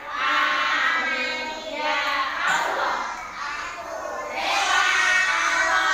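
A class of young children singing together in unison, in phrases of a second or two with short breaks between them.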